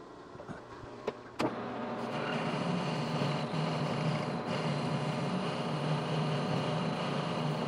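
Metal lathe switched on with a click about a second and a half in, its motor and spindle spinning up and then running steadily.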